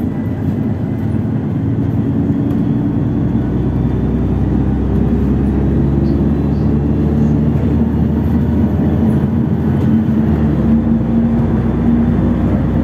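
Cabin sound of a LiAZ 6213.65 articulated city bus under way: a steady engine and drivetrain drone over tyre and road noise, the engine note climbing gradually from about four seconds in as the bus gathers speed.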